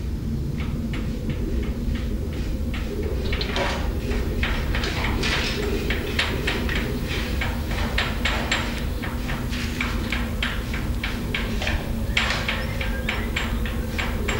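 Bucket-chain excavator at work: a steady low machinery rumble with frequent short metallic squeaks and clanks from the bucket chain, thickest around the middle and near the end.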